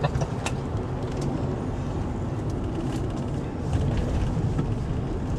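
Car driving: a steady low rumble of engine and road noise, with a few light clicks.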